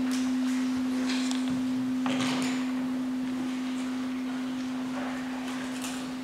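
Tuning fork on a wooden resonator box ringing after a mallet strike: one steady, nearly pure tone of about 256 Hz, slowly fading.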